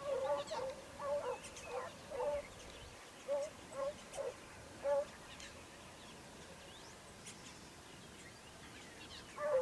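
Distant pack of hounds baying while running a hare's scent: a run of overlapping calls, a few scattered ones up to about five seconds in, then a lull before the baying starts again near the end.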